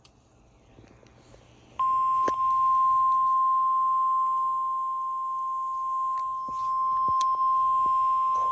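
NOAA Weather Radio warning alarm tone: a single steady 1050 Hz tone that starts abruptly about two seconds in, after near silence.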